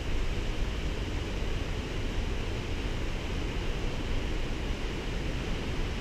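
Steady rush of a waterfall's falling water, an even noise heavy in low rumble.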